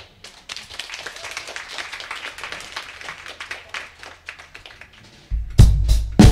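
Audience applause, a dense patter of clapping that fades out; then, about five seconds in, a drum kit and bass guitar start playing loudly with heavy kick and snare hits.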